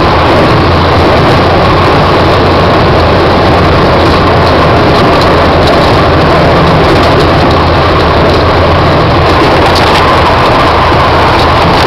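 Paulistinha light aircraft's piston engine and propeller running steadily at low power, very loud from inside the cockpit as the plane taxis on a dirt runway after landing.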